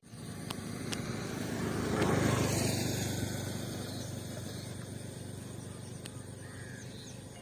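An engine passes by with its running noise and low hum, loudest about two seconds in and then slowly fading.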